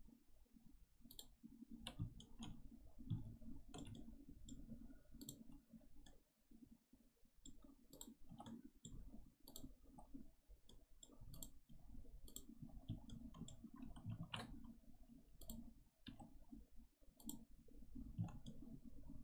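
Faint, irregular clicking of a computer mouse, roughly one click a second, over a low steady hum.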